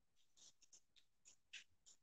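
Faint, scratchy ticks and rustles of resistance bands and their straps being handled, about seven short ticks in two seconds.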